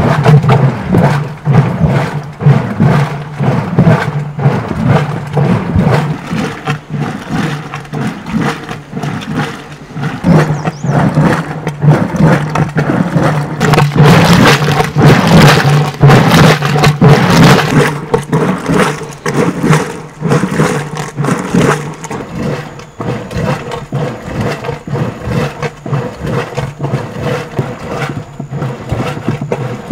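Wooden churn being worked by hand: a wooden stick plunged rapidly and repeatedly into frothy milky liquid, with quick, even sloshing and knocking strokes. A steady low hum runs underneath.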